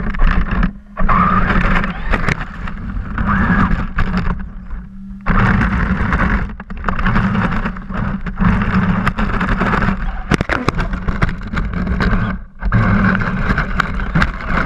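Small vehicle's motor running hard as it drives through creek water, heard from a camera mounted on its body, with water splashing and the sound cutting out briefly three times.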